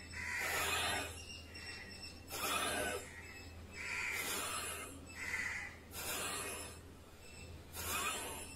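A man breathing forcefully in and out through a yoga breathing exercise, about six loud rushes of breath one to two seconds apart.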